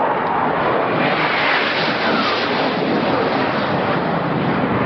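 Loud, steady rushing roar of a Sukhoi Su-24's twin jet engines making a low pass over the ship, mixed with wind on the microphone.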